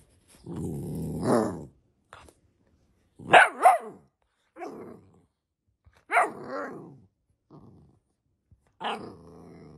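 Golden retriever puppy play-barking and growling. A drawn-out growl rises into a bark about a second in, then come two quick, loud barks back to back, then a few single barks spaced out.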